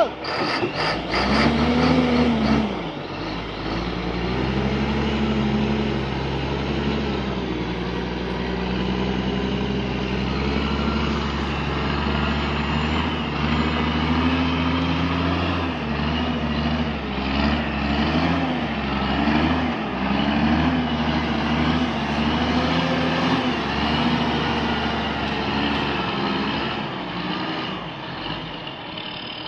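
A heavy logging truck's diesel engine working hard under load, its revs rising and falling over and over, loudest in the first couple of seconds.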